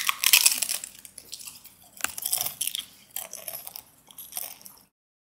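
Crusty baguette crunching as it is bitten into and chewed: a crackly bite at the start, then several more bursts of crunching that stop shortly before the end.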